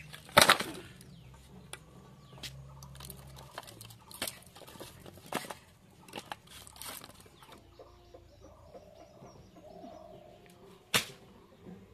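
Scattered sharp knocks and clatters at uneven intervals, a loud one about half a second in and another near the end, with chickens clucking faintly.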